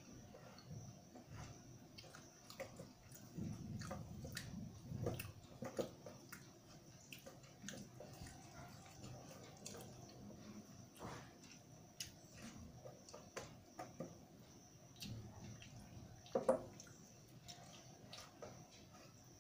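Eating rice by hand from a steel plate: fingers squishing and mixing rice and dal against the metal, with chewing, heard as faint soft squelches and scattered small clicks. One sharper click comes about sixteen seconds in.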